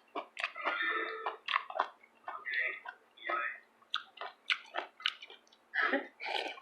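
Noodles being chewed and slurped up close: a rapid, uneven run of short wet smacks and clicks, with a few longer noisy slurps.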